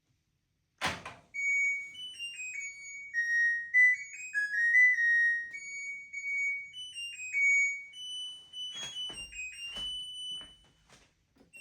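LG WT7600HVA washing machine playing its electronic end-of-cycle tune. A click comes first, then a string of high beep notes stepping up and down, with a few clicks near the end.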